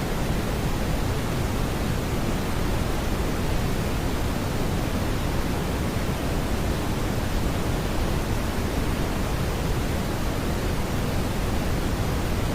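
Synthetic smoothed brown noise: a steady, even hiss-like rumble, weighted toward the low end, with no tones, beats or changes.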